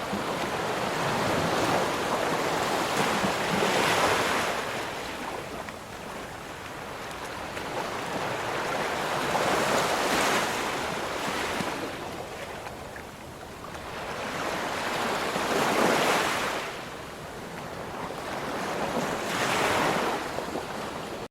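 Ocean waves breaking and washing in, swelling and falling away about every six seconds. The sound cuts off suddenly at the end.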